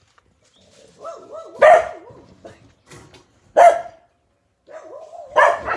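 Australian Cattle Dog puppies play-barking: three sharp barks about two seconds apart, the first and last led in by high, wavering whines.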